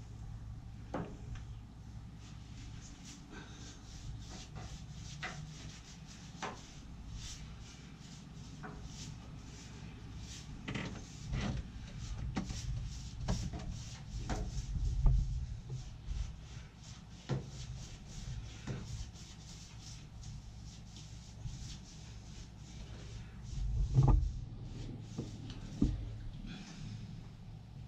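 Scattered knocks, clunks and rubbing from someone working in a narrowboat's engine bay, painting the engine bed with a brush. Two heavier thumps come about halfway through and near the end.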